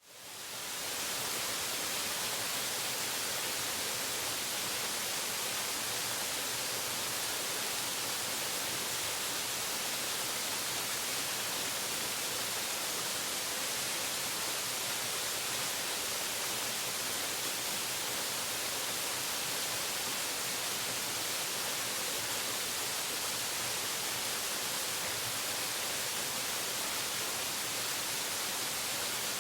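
Waterfall: a steady, even rush of falling water, heavy in the high hiss, fading in over the first second.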